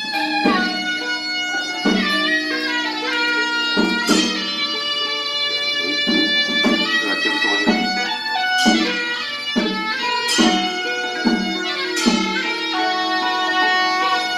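Instrumental music in a traditional Chinese style: melodic string and wind lines that slide in pitch, over a percussion beat struck about once a second.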